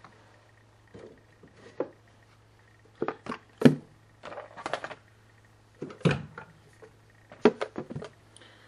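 Cardboard hockey trading card boxes being handled and set down on a desk: a series of knocks and taps, the loudest about three and a half and six seconds in, over a steady low hum.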